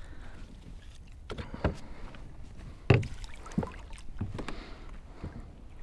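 Knocks and bumps against a Topwater 120 PDL fishing kayak as a landed redfish is handled and swung aboard: several short, sharp knocks, the loudest about three seconds in.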